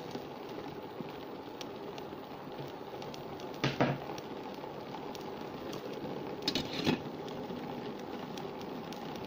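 Water with cubed eggplant boiling in a steel pot, a steady bubbling hiss, as the eggplant is parboiled until soft. A brief clatter about four seconds in and another near seven seconds.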